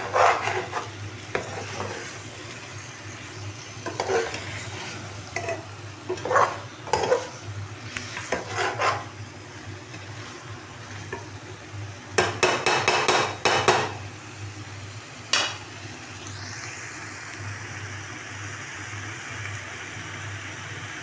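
Bottle gourd and chicken being stirred and scraped against a metal pot, the utensil scraping in short bursts with a dense run of quick scrapes about twelve seconds in, over the steady sizzle of masala frying in oil.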